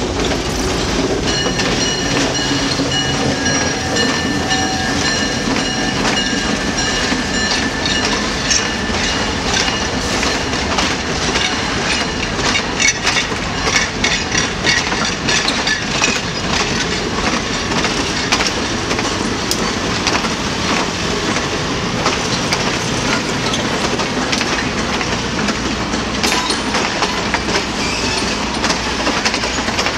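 A diesel locomotive passes and pulls away, its engine drone fading over the first few seconds. A long train of old passenger cars then rolls by, the wheels clicking over the rail joints. A high, steady squeal rings from about a second in until about eight seconds in, likely wheels squealing on the curve.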